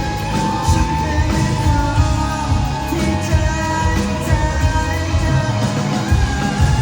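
Thai indie rock band playing live, a singer over guitars and a steady drum and bass pulse.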